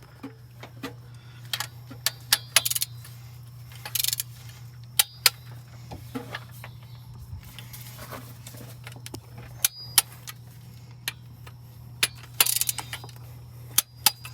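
Metal hand tools and engine parts clinking and knocking at irregular moments during reassembly of a Detroit Diesel 8V92TA blower, over a steady low hum.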